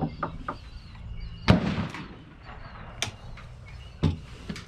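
Short metallic clicks and clacks of a Christensen Arms MPR bolt-action rifle being handled as it is opened up for barrel cleaning. One much louder sharp crack comes about a second and a half in and dies away quickly.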